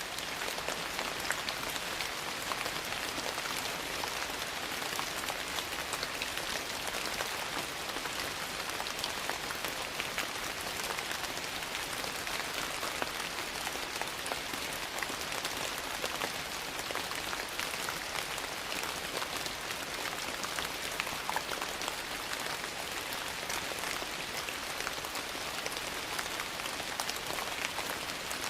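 Steady rain falling on a porch, a constant hiss full of sharp little ticks and crackles, with a wood fire crackling in the mix.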